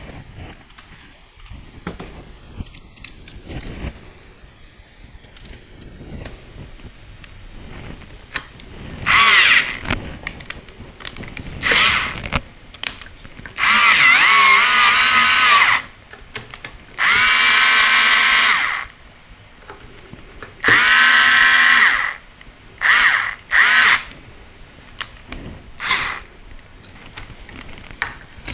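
Small cordless electric screwdriver driving screws into an aluminium frame, running in about eight short bursts of a steady whine, the longest two to three seconds, starting about nine seconds in. Light handling clicks in between.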